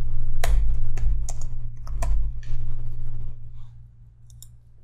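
Typing on a computer keyboard: a run of separate keystrokes over about three seconds, then a few faint clicks near the end, over a steady low hum.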